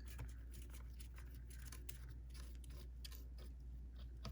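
Faint small clicks and light scraping of metal sewing-machine parts being handled and turned, over a steady low hum.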